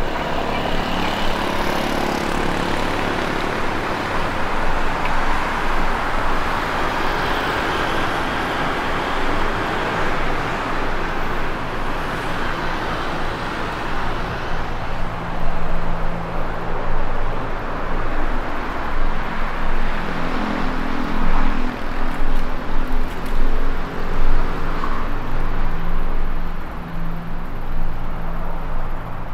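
Road traffic on a busy city street: a steady rush of passing cars and tyre noise that swells to its loudest midway and then eases, with a low engine hum from vehicles in the later part.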